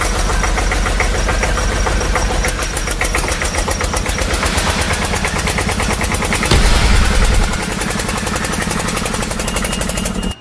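Engine running steadily with a rapid, even knocking beat, louder for about a second around two-thirds of the way through, then cut off abruptly at the end.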